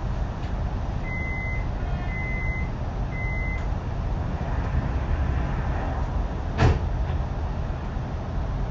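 Three short high beeps of a suburban electric train's door-closing warning, about a second apart, over the train's steady low rumble. About three seconds later a single sharp thud, the sliding doors shutting.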